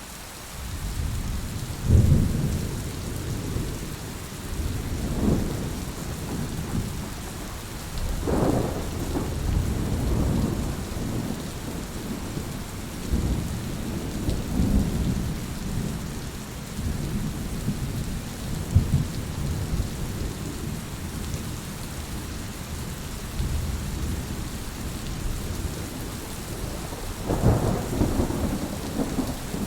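Heavy rain falling in a steady hiss, with rolling thunder rumbling again and again underneath. The strongest rumbles come about two seconds in and near the end.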